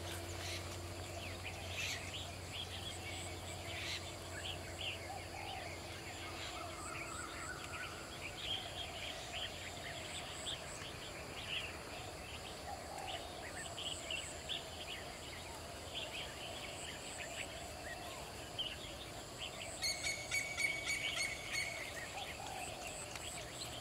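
Rural outdoor ambience: birds chirping here and there over a steady high-pitched insect drone, with a quick run of repeated chirps near the end.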